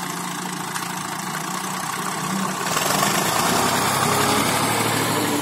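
Massey Ferguson tractor's diesel engine running under load as it tows a wood-laden trolley on a rope; the engine grows louder about three seconds in.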